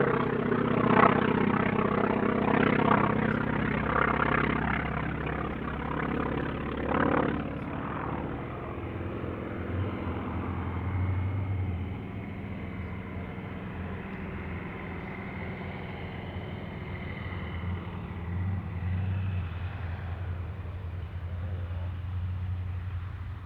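North American T-28 Trojan's radial engine running, loud at first and fading over about eight seconds to a steady low drone.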